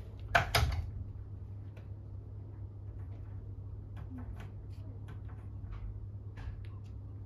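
Norwegian Forest Cat working at a closed door, trying to open it: two loud knocks just after the start, then a scatter of light clicks and rattles from the door over a couple of seconds, over a steady low hum.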